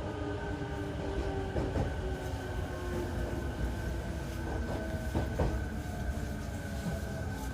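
Cabin running noise of a JR E233 series 8000-subseries electric train under way, with the steady tones of its Mitsubishi IGBT-VVVF inverter and traction motors over a low rumble. A few wheel clacks over rail joints come about one and a half, four and a half, and five seconds in.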